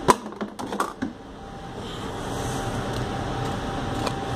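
A quick run of light clicks and knocks in the first second, then a steady background hum with a faint high whine.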